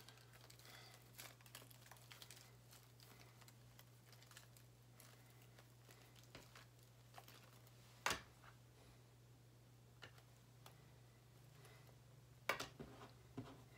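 Quiet handling noise of hands working polymer clay onto a foil head armature: faint scattered clicks and small taps over a low steady hum, with a sharper click about eight seconds in and a few more clicks near the end.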